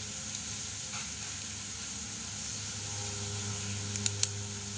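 Steady hiss with a low hum underneath: a live-stream microphone's background noise. A few sharp clicks come about four seconds in.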